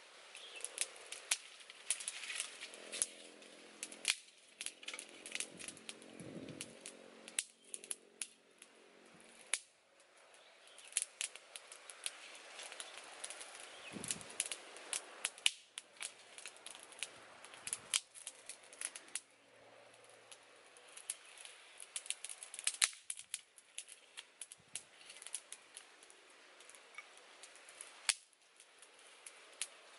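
Small wood campfire crackling, with frequent sharp, irregular pops and snaps, while dry sticks are moved around in it.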